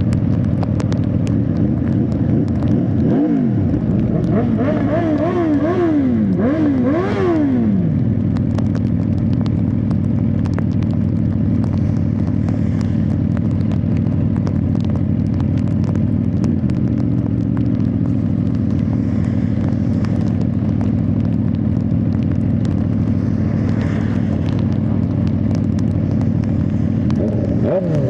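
Suzuki GSX-R1000R inline-four engine accelerating through several quick upshifts a few seconds in, the revs climbing and dropping back with each gear, then running at steady cruising speed under loud wind and road noise; the revs fall again near the end.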